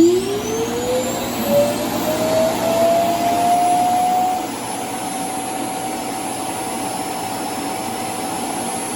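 Roomba s9+ Clean Base's suction motor emptying the docked robot's bin: a loud whine climbing in pitch over about four seconds, then holding steady.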